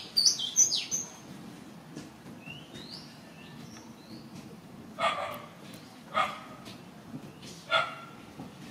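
Animal calls: a burst of loud, high chirps that glide quickly in pitch in the first second, then a few fainter rising squeaks, then three short barks spaced a second or so apart in the second half.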